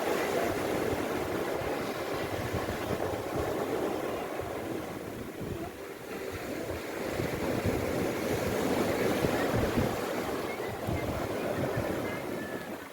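Sea waves washing onto the shore, swelling, easing and swelling again, with wind buffeting the microphone.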